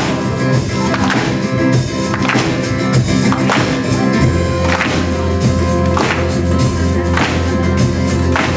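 Live worship band playing a song: held keyboard and guitar chords over a steady beat struck about once every second.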